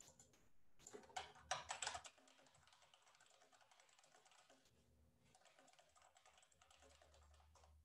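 Faint typing on a computer keyboard: a quick run of key clicks, loudest about a second in, then lighter, steady tapping.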